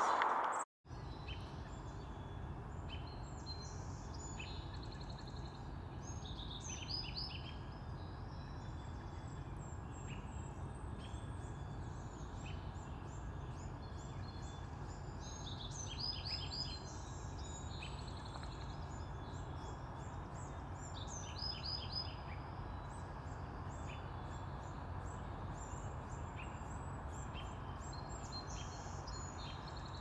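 Birds chirping and calling in short, scattered notes over a steady low background noise, with a few busier clusters of calls spread through.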